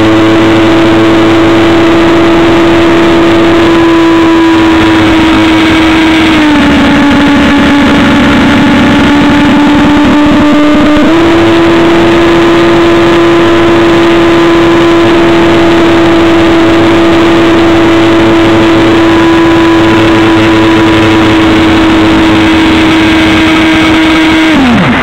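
Electric motor and pusher propeller of a Stryker F-27C RC flying wing, heard up close through a camera strapped to the airframe: a loud, steady whine over a rush of air. The pitch dips a little about six seconds in, comes back up about eleven seconds in, and falls off sharply right at the end.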